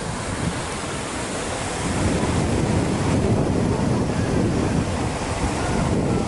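Wind buffeting the microphone: a steady rushing noise with a heavy, fluttering low rumble.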